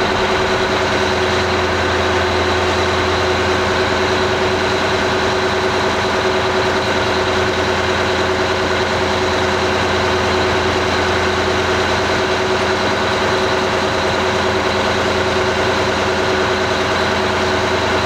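Detroit Diesel 12V92TA twin-turbo two-stroke V12 diesel idling steadily and evenly after a cold start at about 1 °C without glow plugs or any cold-start aid.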